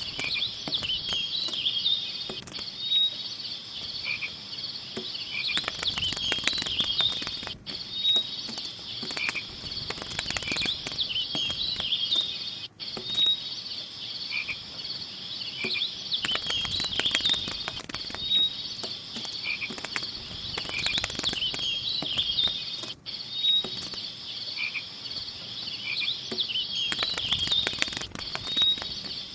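A chorus of frogs and insects chirping steadily, with high chirps repeating on a cycle of about five seconds, like a looped nature-ambience track. Every few seconds there are short bursts of crackly clicks.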